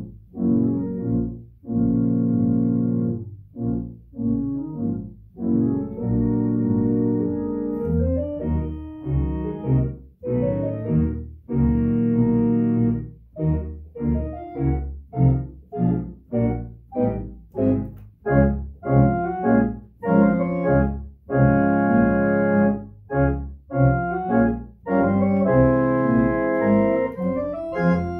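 Three-manual organ playing a slow, solemn elegy in sustained chords over a deep pedal bass, the chords set apart by short breaks. Several seconds in the upper voices grow fuller and brighter.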